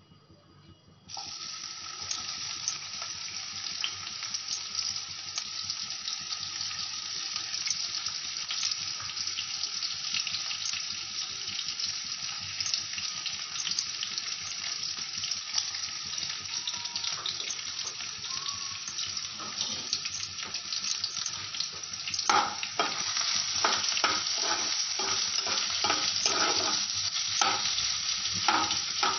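Sliced onion and potato frying in hot oil in a nonstick pan: a loud sizzle starts suddenly about a second in and keeps going. From about two-thirds of the way through, a spatula stirring and scraping in the pan adds irregular clacks over the sizzle.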